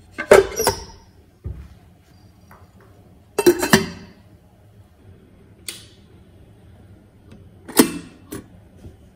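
Stainless steel inner pot of an electric rice cooker set down into the cooker with a ringing metal clank, then a glass lid clinking onto the pot a few seconds later. Near the end the cooker's switch is pressed down with a sharp click to start cooking.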